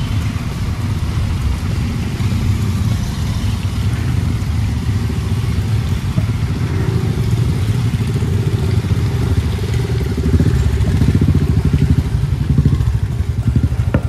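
A group of motorcycles riding past one after another, their engines running with a low, rapid beat. The sound gets louder toward the end as the bikes come closer.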